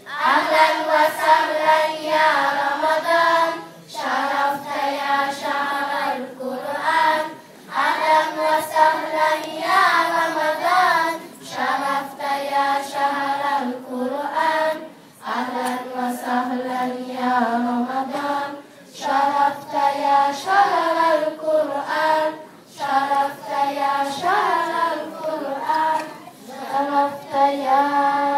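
A group of children singing an Arabic nasheed together in sung phrases of a few seconds each, with short pauses for breath between them.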